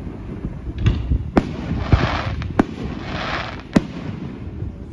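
Aerial firework shells bursting overhead: about five sharp bangs at uneven spacing, with two stretches of hiss between them.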